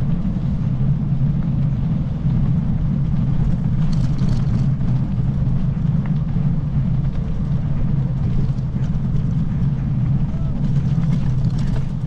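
Steady low rumble of a vehicle rolling down a paved road, heard from a camera mounted on it, with a few faint rattles.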